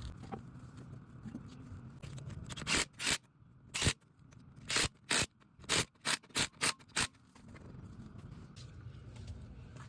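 Wire brush scrubbing brake dust and rust off a front brake caliper bracket: about ten short, hissy scraping strokes in a quick, uneven run through the middle.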